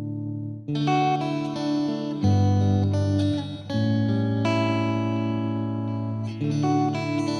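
Background music: plucked guitar chords changing every second or two.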